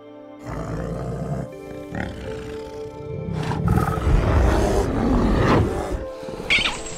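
A bear growling, low and rough, loudest over a few seconds in the second half, over background music with sustained tones.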